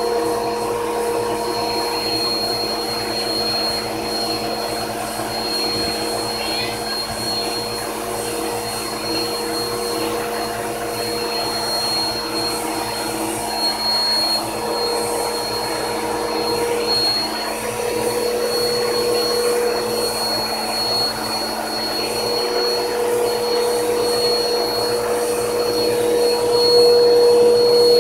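Vacuum cleaner running steadily, a constant hum with a high whine over the rush of air, its hose and brush attachment being drawn over a cat's fur; a little louder near the end.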